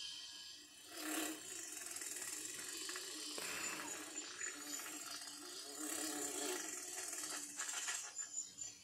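Sound effects from an animated film trailer, heard from a VHS tape through a TV's speaker: a busy, noisy mechanical texture that swells about a second in, with no music.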